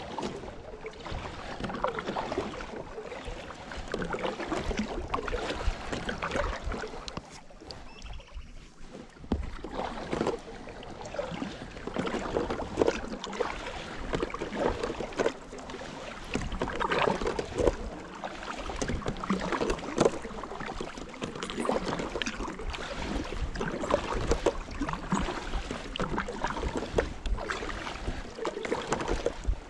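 Kayak paddle strokes: the blades dip and splash in the water while water washes along the hull of an inflatable kayak. The splashing eases off briefly about eight seconds in.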